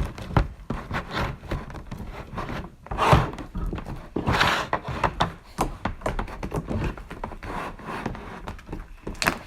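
Hands mixing and squishing homemade slime: irregular sticky clicks and small knocks, with louder rustling squelches about three and four and a half seconds in.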